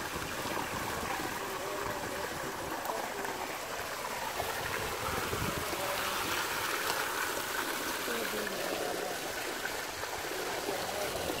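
Water running steadily through a narrow muddy ditch channel, a constant trickling rush.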